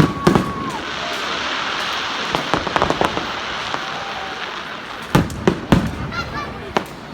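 Fireworks going off: a steady whistle that stops about a second in, then sharp bangs over a hiss, with a quick run of bangs about five seconds in.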